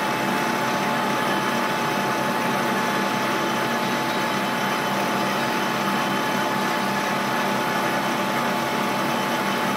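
Slant-bed CNC lathe with a powered tool turret running while a turret tool cuts concentric grooves into the face of a metal disc: a steady machine hum with a constant thin whine.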